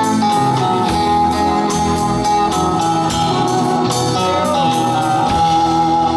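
Live rock 'n' roll band playing an instrumental passage: electric guitar with held lead notes over a steady drum beat and bass.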